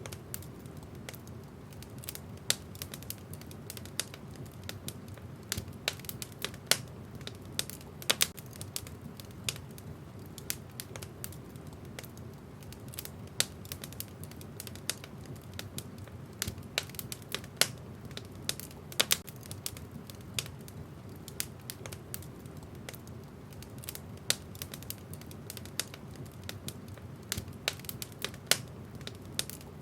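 Wood burning in a fireplace, crackling: frequent, irregular sharp pops and snaps, some much louder than others, over a steady low rumble.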